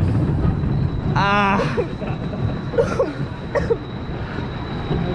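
Wooden roller coaster train rolling along the brake run: a low steady rumble of wheels on the wooden track that fades as the train slows. A short wavering cry comes about a second in.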